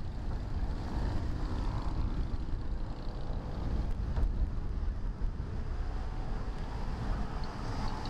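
Beach ambience: wind rumbling on the microphone over a steady rush of surf.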